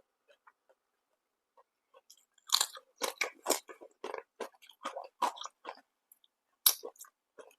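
Close-up chewing of crisp food: quiet mouth clicks at first, then about two and a half seconds in a run of loud crunching bites, with one more sharp crunch near the end.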